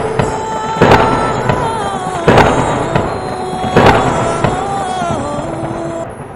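Dramatic title-sting music: three heavy booming impact hits about a second and a half apart, with wavering synth tones ringing between them. It fades out near the end.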